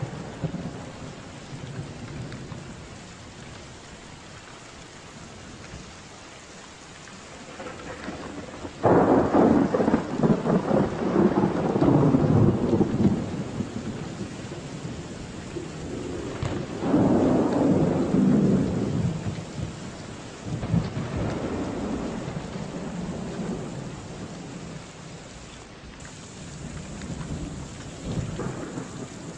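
Thunderstorm: steady rain falling with rolling thunder. A sudden loud thunderclap about nine seconds in rumbles on for about four seconds, a second long rumble comes a little past halfway, and a fainter one near the end.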